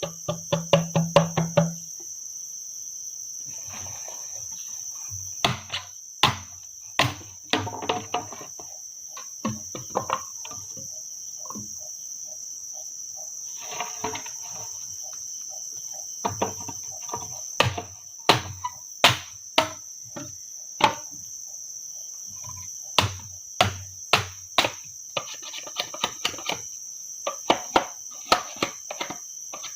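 A steady, high-pitched insect chorus, with many sharp knocks scattered irregularly through it, some coming in quick runs.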